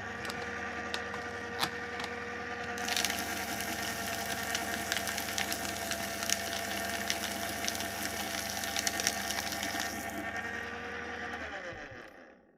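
Electric paper shredder: the motor starts and runs with a steady hum. About three seconds in, paper is fed through and the cutters add a crackling, crunching noise for about seven seconds. The motor then runs empty briefly and winds down near the end.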